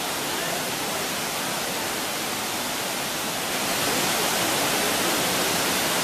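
Waterfall pouring down a face of dark rock steps into a churning pool: a steady, full rushing hiss that grows a little louder about three and a half seconds in.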